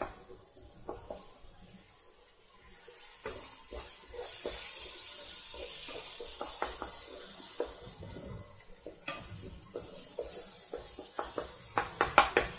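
A flat spatula stirring and scraping thick masala paste in a nonstick pan, the paste frying in oil with a steady sizzle. The sizzle comes up about three seconds in and fades around nine seconds, and a quick run of sharper scrapes comes near the end.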